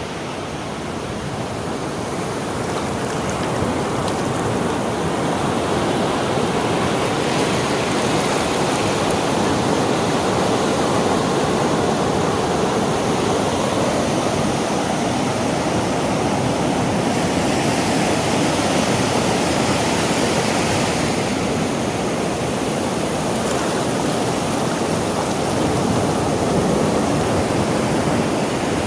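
Sea waves: a steady, continuous rush of surf washing in, brightening briefly about two-thirds of the way through.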